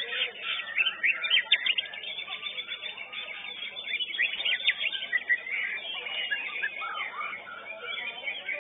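White-rumped shamas (murai batu) singing: a dense, fast jumble of whistles, trills and chirps.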